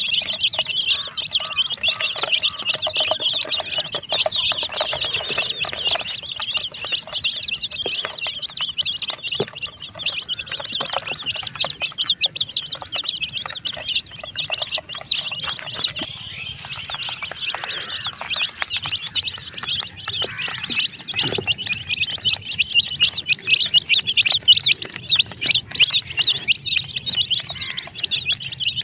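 A flock of baby chicks peeping continuously, a dense chorus of many short, high-pitched cheeps overlapping one another.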